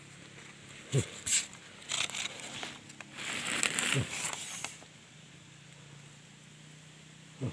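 Scraping and rustling of a climber's hands, clothes and camera against tree bark and a bamboo climbing pole, with short grunts of effort about a second in, at about four seconds and near the end.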